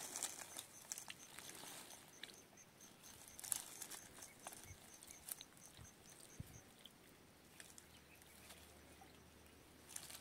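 Near silence, with faint rustling and ticking of dry grass being handled by hand. A faint high chirp repeats about three times a second, stopping about two-thirds of the way through.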